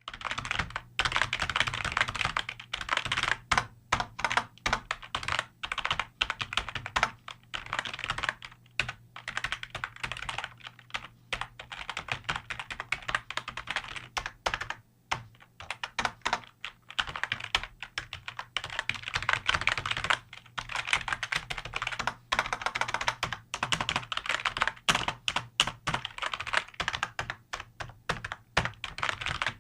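Computer keyboard being typed on quickly: dense, uneven flurries of key clicks with brief pauses between runs.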